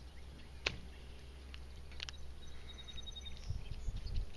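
Low wind rumble on the microphone that gusts near the end, a few sharp clicks, and a brief high trill from a bird about halfway through.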